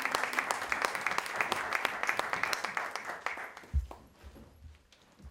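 Audience applauding, the clapping dying away over the first three to four seconds; a single dull low thump near the end of the clapping.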